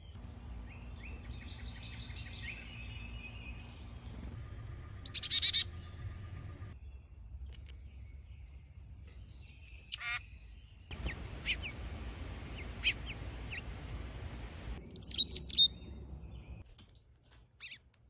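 Small songbirds chirping in three short bursts of quick high notes, over a low outdoor background hum that cuts in and out abruptly.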